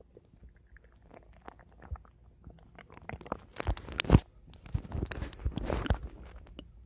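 Human stomach gurgling: scattered faint pops, then a dense run of bubbly gurgles and clicks starting about three seconds in, loudest just after four seconds, settling near the end.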